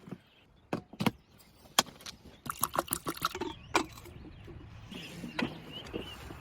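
A series of sharp clicks and knocks at irregular intervals, like something hard being handled, with a cluster of them around the middle.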